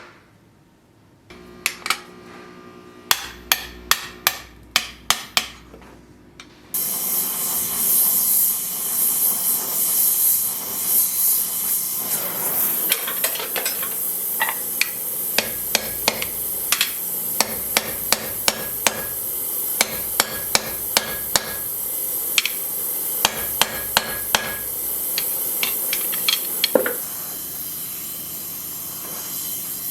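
Light hammer taps in a workshop, about two a second at first. About seven seconds in, a loud steady hiss starts, and irregular taps go on over it.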